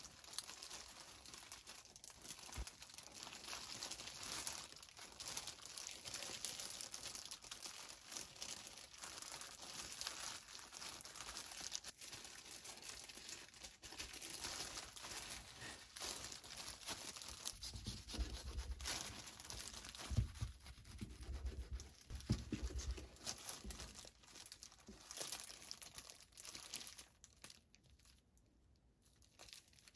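Clear disposable plastic gloves crinkling and rustling as hands press and roll a gimbap of rice and laver, with a few dull low bumps about two-thirds of the way through. The rustling drops away near the end.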